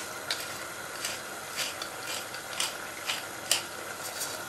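Pepper mill being twisted to grind pepper: a series of short grinding strokes, about two a second.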